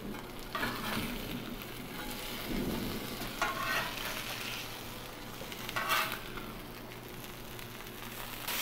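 Cornflake-breaded chicken strips sizzling in oil on a steel flat-top griddle, with a metal spatula scraping across the griddle three times as it slides under the strips to turn them.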